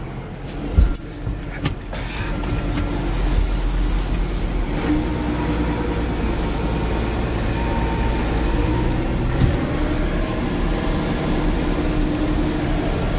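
Tractor engine running, heard from inside the loader tractor's cab, getting louder about two seconds in as the tractor moves off. A sharp knock comes about a second in and another near the end.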